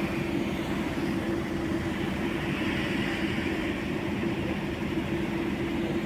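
Steady street traffic noise with a constant low hum, swelling slightly in the middle as a vehicle passes.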